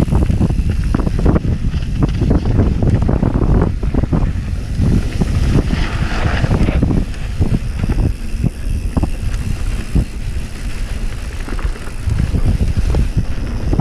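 Wind rushing over a camera microphone at downhill mountain-biking speed, with frequent knocks and rattles as the bike jolts over a rough dirt trail.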